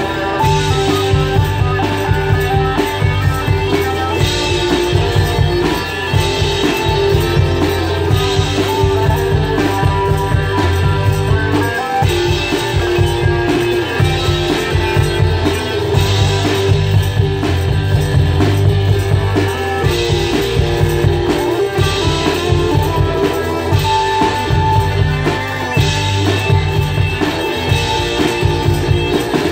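A one-man band playing live: guitar over a steady drum beat, rock-style.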